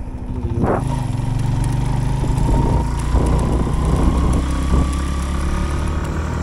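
Suzuki GS150 single-cylinder four-stroke motorcycle engine running steadily while the bike rides along, its note rising slowly over the first few seconds.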